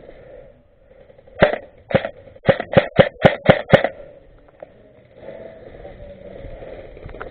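Airsoft gun firing about eight single shots in quick succession, the first two spaced out and the last six coming about four a second.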